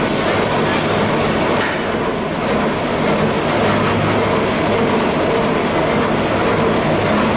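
Mobile gold and diamond washing plant running: its jig and electric water pump give a continuous mechanical noise with a steady hum underneath.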